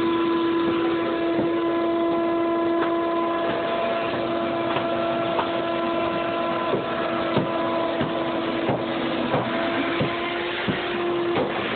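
Electric pump running with a steady hum over a constant rush of water, pumping out a flooded basement. Irregular clicks and knocks join in from about halfway through, and the hum breaks off briefly near the end.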